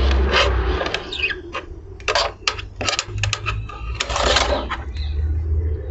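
Metal roasting pan, covered with a second pan, pushed into a wood-fired clay oven with a metal rod: a run of sharp metallic clinks and scraping rasps as metal slides and knocks on the oven floor, the longest scrapes about two, three and four seconds in.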